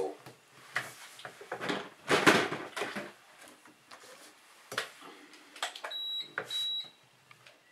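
Handling noise on a cluttered workbench as a battery is plugged into a toy quadcopter: clicks, rustling and a louder clatter about two seconds in. About six seconds in come two short, high electronic beeps.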